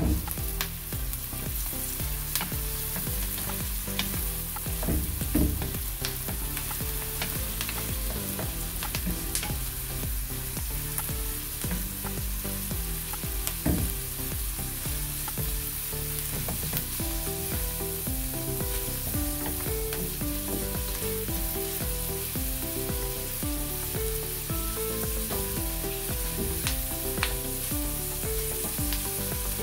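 Ground pork and diced onions sizzling in butter and oil in a metal wok, with a wooden spatula scraping and clicking against the pan as it is stirred. A sharp knock at the very start.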